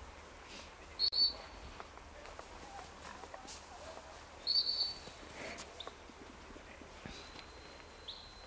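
Gundog whistle: short, loud blasts at one high, unchanging pitch about a second in and again around four and a half seconds in, then a quieter, longer steady blast near the end. These are handler's whistle signals directing a retriever that is searching for game.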